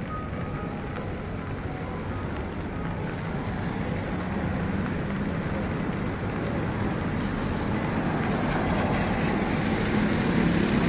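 Steady rumble of road traffic, with no distinct engine or horn standing out, slowly growing louder toward the end.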